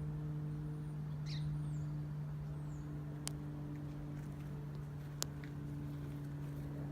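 A steady low hum, with faint high chirps in the first few seconds and two sharp clicks about two seconds apart in the middle.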